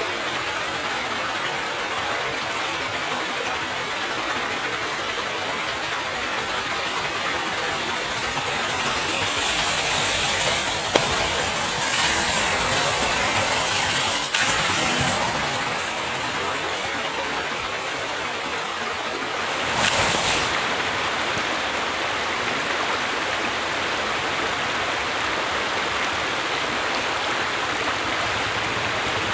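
A mass of burning safety matches hissing steadily, flaring up louder with brighter rushes of hiss a third of the way in and again about two-thirds in.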